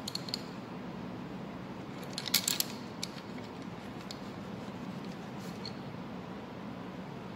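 A few light clicks and taps as the black internal breather is fitted into the centre of the camshaft gear, with a quick cluster of clicks a little over two seconds in, over a steady low background hum.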